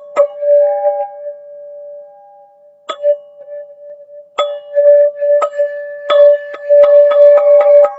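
Teal ZenTube, a tuned metal percussion instrument, struck and left ringing. A note rings at the start and a lone strike comes about three seconds in. From halfway on the strikes come again, faster near the end, around one main pitch.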